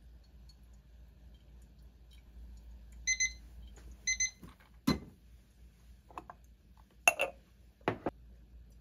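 Two short electronic beeps about a second apart, then several clunks of the pour-over dripper and mug being handled as the dripper comes off the cup.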